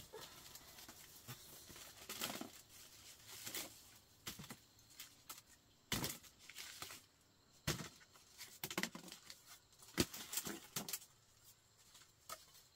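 Woven bamboo baskets being handled and shifted: rustling and scraping of wicker, with scattered sharp knocks as bamboo pieces and basket rims bump together, the loudest about six, eight and ten seconds in.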